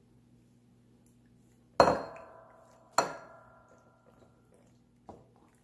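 Glass mixing bowl knocked twice as a cheese mixture is scraped out of it with a spatula: two sharp ringing clinks about a second apart, each dying away, then a softer knock near the end.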